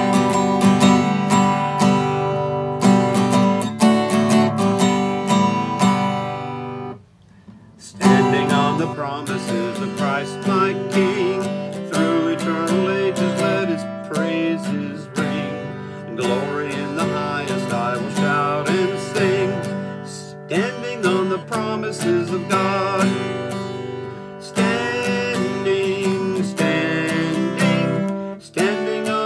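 Steel-string acoustic guitar strummed in chords. After a brief break in the playing about seven seconds in, a man begins singing a hymn over the guitar.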